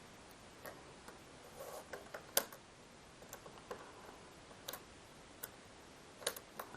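Scattered faint clicks and taps of a small screwdriver and tiny screws being handled during a Magic Mouse teardown, with the sharpest click about two and a half seconds in.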